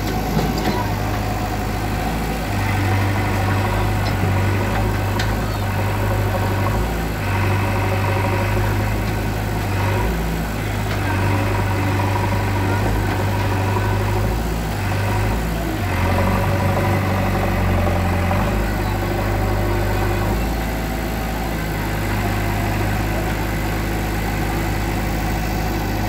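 JCB 3DX backhoe loader's diesel engine running steadily, its note shifting up and down every few seconds as the machine works, with a few faint knocks of falling brick.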